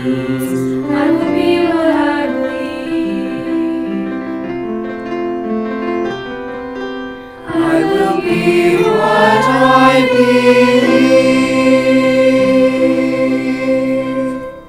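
Youth choir singing in parts, a virtual choir mixed from separately recorded voices. One phrase fades about seven seconds in and a new one swells up, ending on a long held chord that stops near the end.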